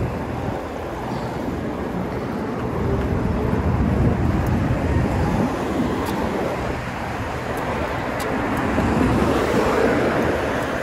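Road traffic: cars driving past close by in the lane alongside, a steady rushing noise that swells a little about four seconds in and again near nine seconds.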